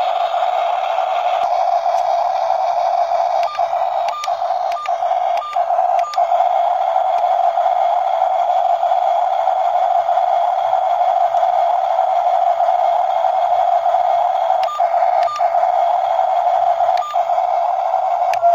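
Small electric motor and gearbox of a remote-control toy excavator or dump truck running under load with a steady high whine. A few brief dips and clicks break it, a cluster about four seconds in and a couple more near the end.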